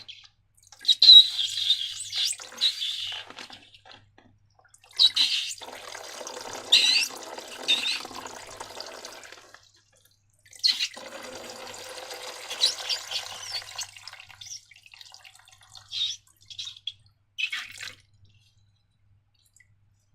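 Wet, sticky slime sounds: liquid slime being poured and squished in three stretches of a few seconds each, then a few short wet clicks a little before the end.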